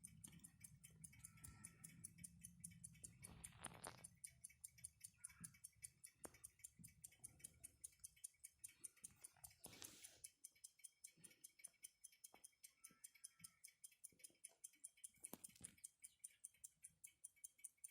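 Alpina pocket watch movement ticking steadily and faintly, about five ticks a second, with a few soft handling noises in between.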